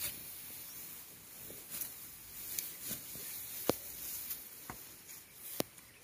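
Dry, ripe rice stalks rustling as they are gathered and worked by hand during harvesting, with a few sharp clicks in the second half.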